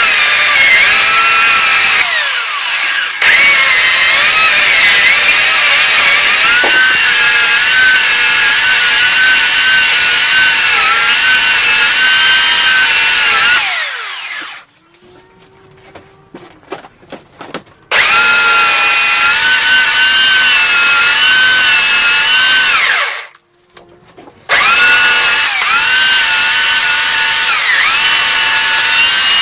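Chainsaw running at full throttle as it cuts across the top of a log to flatten it, its pitch wavering under load. Twice the throttle is let off and the engine falls to a quiet idle: for a few seconds around the middle and briefly again near the end.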